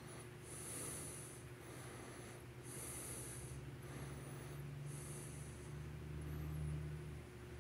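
Low steady hum of the small motor of a rotating display turntable, swelling a little near the end. Three short high hisses come about two seconds apart, with faint squeaks between them.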